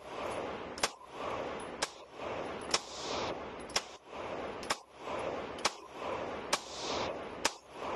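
Nine-millimetre Glock pistol fired in slow, steady aimed shots: eight shots about one a second, each with a short echo off the indoor range walls.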